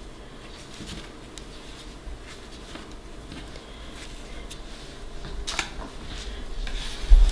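Faint handling noise of a cloth towel and baking paper being shifted on a countertop, with a few light clicks and a dull thump near the end.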